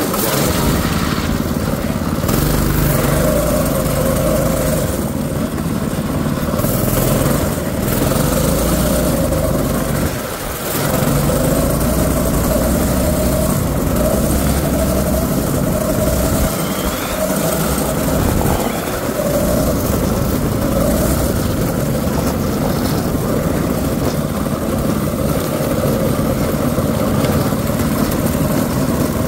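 Predator 6.5 hp single-cylinder four-stroke engine on a drift trike running while riding, its note rising and falling with the throttle and easing off briefly about ten seconds in.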